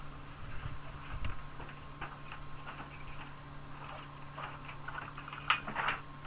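Irregular footsteps and light scuffing knocks, busiest in the second half and loudest about five and a half seconds in, over a faint steady hum and a thin high tone.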